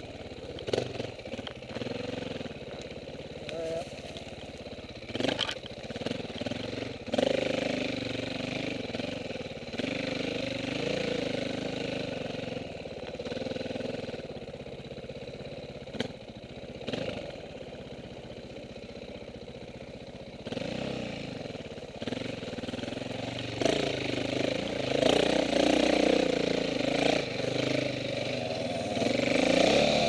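Dirt bike engine running at low, changing revs, with scattered sharp knocks and clacks, then opening up and revving louder over the last several seconds.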